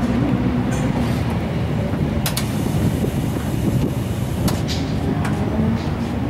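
Toggle switches on a VW Polo S1600 rallycross car's switch panel clicking a few times as they are flipped to switch the car on for starting, over a steady low drone.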